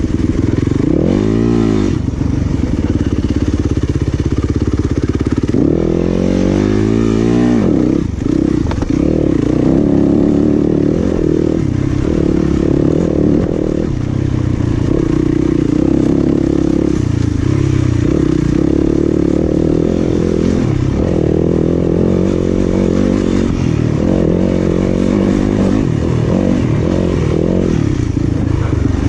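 Off-road dirt bike engine running under hard throttle, revs rising and falling as the rider blips and shifts, with steady rattle from the bike and trail. Quick bursts of revving come about a second in and again around six to seven seconds, with a brief let-off near eight seconds.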